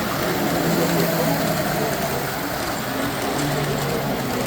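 Steady crowd chatter: many overlapping voices blending into a continuous murmur in a large, busy hall.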